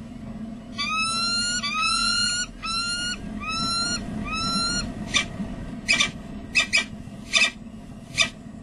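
Peregrine falcon calling: five drawn-out calls, each rising in pitch and then levelling off. About four seconds in, these give way to a run of short, sharp calls, all over a steady low hum.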